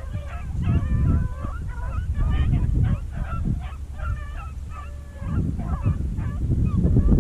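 Pack of beagle rabbit hounds baying on a rabbit's trail, several voices overlapping in repeated calls, over a loud low rumble.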